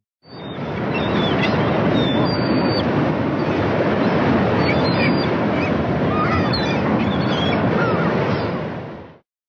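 Ocean surf: a steady, loud rush of breaking waves, with short bird calls over it now and then. It starts just after the music ends and cuts off abruptly near the end.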